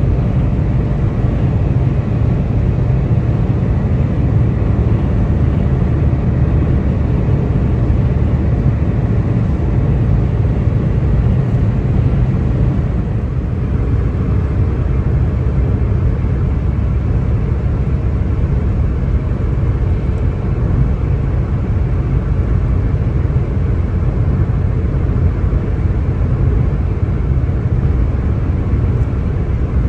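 Car driving at motorway speed in rain: a steady low rumble of engine and tyres on the wet road, with an even hiss above it.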